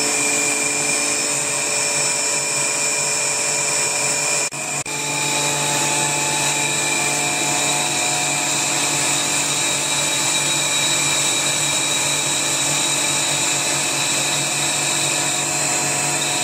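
Vacuum pump running steadily, drawing vacuum on the bagged laminate during resin infusion: a constant mechanical hum with a high whine over it, broken by a short double dip about four and a half seconds in.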